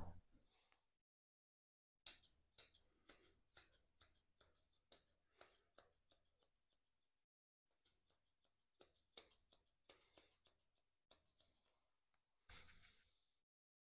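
Chunker shears snipping through a cockapoo's coat: quick runs of faint, crisp snips, about four a second. They start about two seconds in and pause briefly in the middle. A short soft hiss comes near the end.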